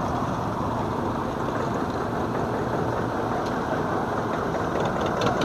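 Engines of vintage farm tractors running steadily at low speed as they drive slowly past.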